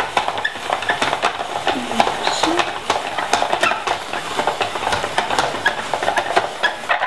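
Hand-cranked plastic three-blade spiralizer cutting a zucchini into spaghetti strands: a dense, steady run of clicks and scraping as the blade shaves the vegetable, stopping suddenly at the end.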